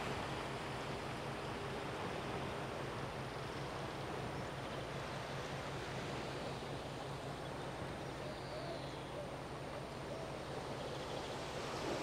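Steady wash of sea and wind, with a low steady hum underneath.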